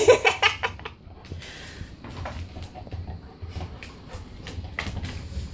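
A heavy bowling ball rolling and being pushed over a hard kitchen floor by a dog, an uneven low rumble that swells and fades, with scattered light clicks and knocks of paws and claws on the floor.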